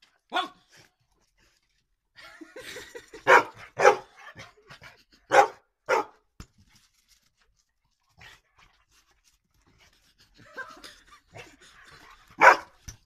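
Rottweiler barking at a toy dangled on a string: about six loud single barks, several coming in quick pairs, then a long pause before a last loud bark near the end.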